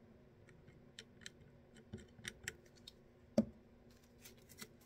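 Light clicks and ticks from small tools and a plastic squeeze bottle of cement being handled at a fly-tying vise, with one louder knock about three and a half seconds in.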